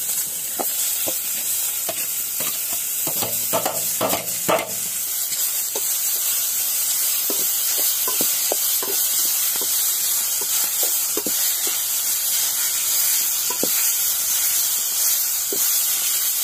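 Freshly grated ash gourd (white pumpkin) sizzling in hot ghee in an aluminium kadai as it is stirred, with a steady frying hiss. A metal ladle scrapes and clicks against the pan every so often.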